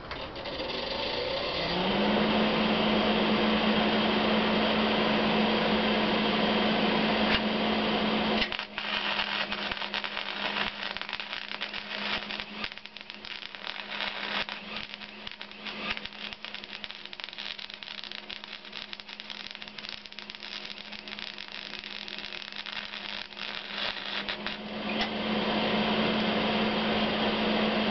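An electric motor spins up and runs with a steady hum. For a long middle stretch it runs quieter, joined by irregular crackling and sputtering, then settles back to a steady hum near the end.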